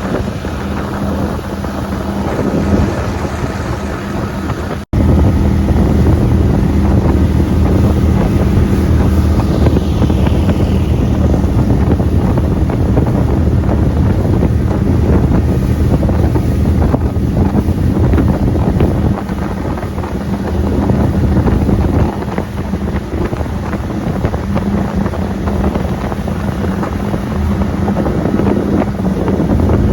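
Gator-Tail surface-drive mud motor running steadily, pushing the boat along, with wind buffeting the microphone. The sound drops out briefly about five seconds in and comes back louder.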